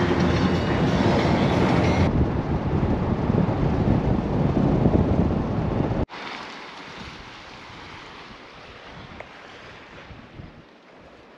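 Wind and road noise rushing past a moving Toyota Tacoma. About six seconds in it cuts off abruptly to quieter wind with surf on a rocky sea shore.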